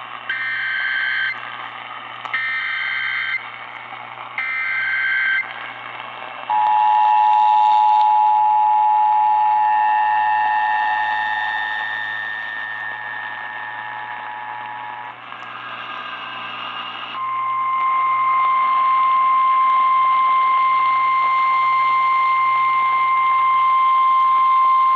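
Emergency Alert System activation received over the radio with static: three short screeching SAME data bursts, then the two-tone attention signal for about eight seconds, fading near its end, a couple of seconds of bare static, and then the steady single 1050 Hz NOAA Weather Radio warning tone. It is the alert heralding a tornado warning.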